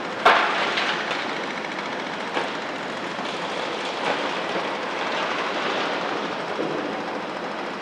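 Rubble dumped from a Volvo excavator's bucket into a steel dump-truck body: a sharp crash just after the start, then a few smaller knocks. Excavator engines run steadily underneath.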